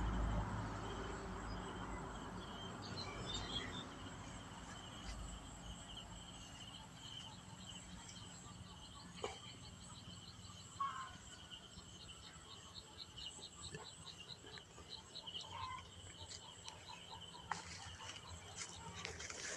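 Insects chirping in a steady high drone, with a rapid pulsing trill of about five pulses a second through the middle, and a few faint clicks and short calls over it.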